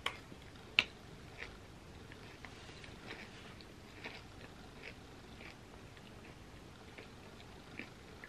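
Close-up chewing of a mouthful of gooey chocolate cookie pizza, with small, scattered mouth clicks. A spoon knocks sharply against the pizza pan at the start and again, louder, about a second in.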